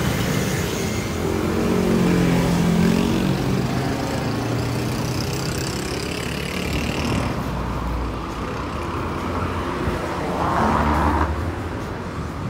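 Road traffic passing close by: cars and motorcycles driving past on a multi-lane road, with one engine's hum loudest from about one to four seconds in.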